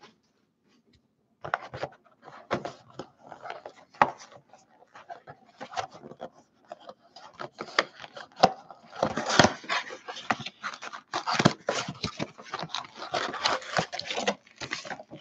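A cardboard trading-card blaster box being opened and handled by hand: irregular clicks, scrapes and rustling of cardboard and wrapped card packs, starting about a second and a half in and busiest in the second half.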